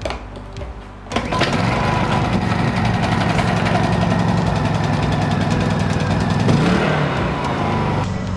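Honda EU2200i inverter generator being pull-started: the engine catches about a second in and then runs steadily.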